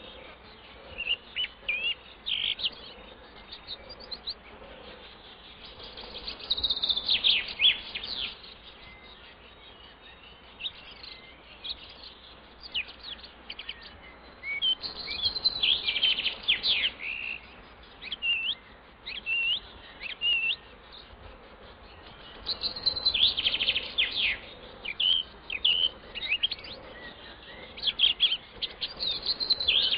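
Small birds chirping and calling, in clusters of quick, sharp, high notes that come every few seconds over a faint steady hiss.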